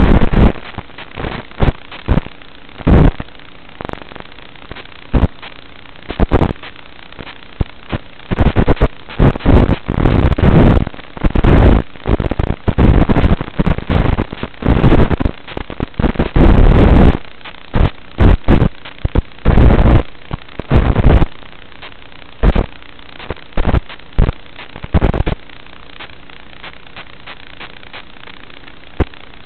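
FPV racing quadcopter heard through its onboard microphone: loud, distorted bursts of motor and propeller noise with wind rushing over the mic, coming and going with the throttle. The bursts stop about 25 seconds in, as the quad settles on the turf, leaving a steady hiss.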